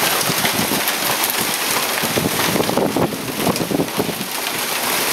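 Heavy downpour of rain mixed with hail, a dense clatter of many small impacts, with wind buffeting the microphone.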